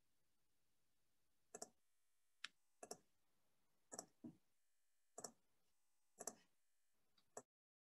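Faint clicking of a computer mouse, about eight clicks, several in quick pairs, spread over several seconds. The sound then cuts off suddenly into dead silence near the end.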